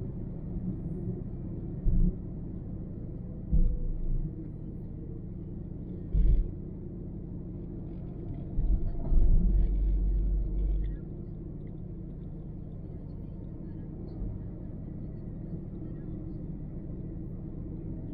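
Car driving, with a steady low road rumble of tyres and engine. Several short, deep thumps stand out: near 2, 3.5 and 6 seconds in, and a longer one from about 9 to 11 seconds.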